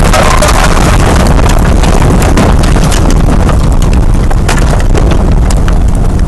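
Tornado wind blasting the microphone in a loud, steady rush, with many sharp knocks and clicks scattered through it from debris striking.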